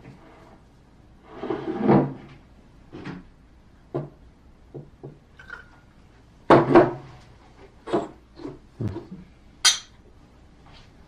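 Short knocks and clunks of glasses and dishes being handled on a dining table, scattered irregularly, with the loudest pair about six and a half seconds in.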